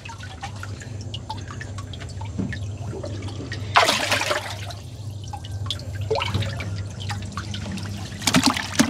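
Hands sloshing in shallow water to grab a fish, with water dripping and trickling. There is a loud splash about four seconds in and more splashing near the end as the fish is lifted out. A steady low hum runs underneath.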